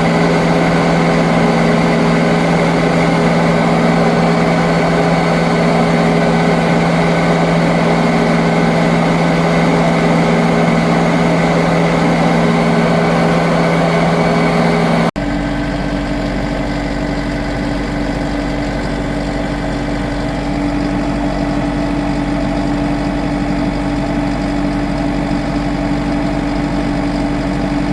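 A vehicle engine running steadily. About halfway through it cuts abruptly to a different steady engine tone with a deeper rumble.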